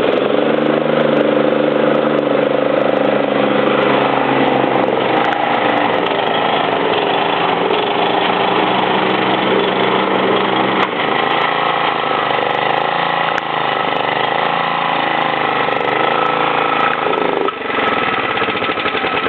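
Exmark self-propelled walk-behind lawn mower engine running steadily, its pitch wavering a little midway. Near the end the sound changes as the mower is shut off.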